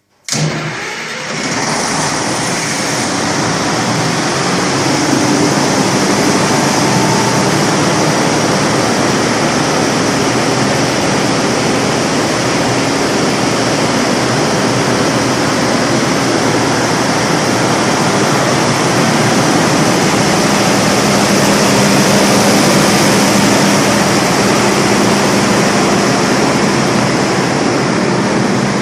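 SDMO 550kVA standby diesel generator starting: it fires abruptly about a third of a second in, then settles into a loud, steady run with no load applied, building up slightly over the first few seconds.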